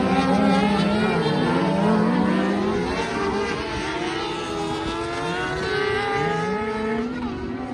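A pack of off-road racing buggies running hard on a dirt circuit, several engine notes rising and falling as the drivers accelerate and lift. The sound eases somewhat as the cars move away after passing close by.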